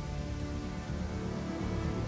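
Background music of sustained chords over a low, pulsing bass.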